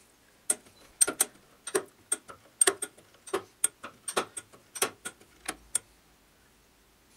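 Index plate and spring-loaded plunger pin of a lathe dividing attachment clicking as the index arm is turned round the plate and the pin snaps into its holes, indexing from tooth to tooth. A quick, uneven run of sharp metal clicks, two or three a second, that stops about six seconds in.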